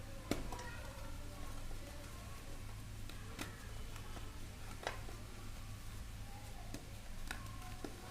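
Gym chalk crunching and crumbling in a few separate sharp cracks, the loudest just after the start, over a steady low hum.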